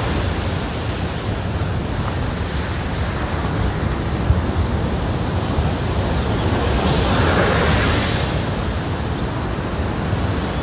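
Surf breaking and washing up the beach, a steady rush with one wave swelling louder about seven seconds in, over a low rumble of wind buffeting the microphone.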